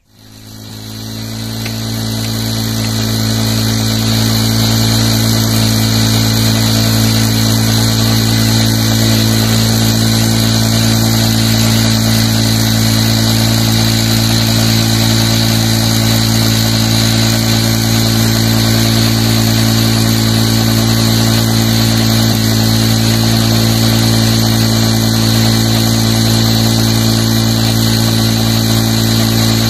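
Honda CD 70's single-cylinder four-stroke engine running at a steady speed while driving a tubewell water pump. It fades in over the first couple of seconds and then holds one unchanging pitch. Water gushes from the pump's outlet pipe throughout.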